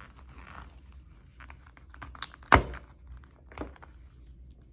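Handling noise from a small coated-canvas key case being picked up off a wooden desk: faint rustling, with a sharp click about two and a half seconds in and softer clicks around it.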